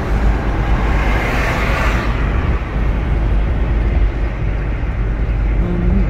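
Steady low road and engine rumble of a car driving at highway speed, heard from inside the cabin, with a brief swell of hiss about a second in.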